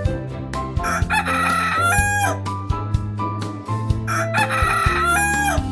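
A rooster crowing twice, two long cock-a-doodle-doo calls about three seconds apart, over soft background music.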